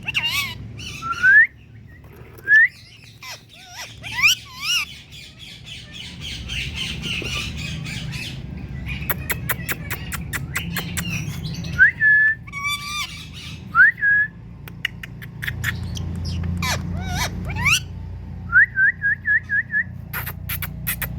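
Indian ringneck parakeet calling: harsh repeated squawks mixed with short rising whistled notes, ending in a quick run of about six rising whistles. A low steady hum runs underneath.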